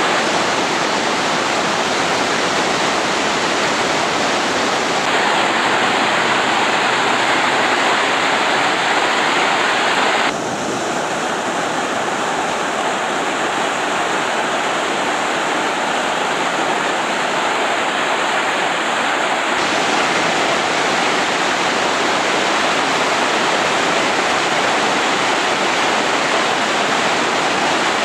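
River rapids: a steady, loud rush of whitewater. The sound changes abruptly in tone about five, ten and twenty seconds in.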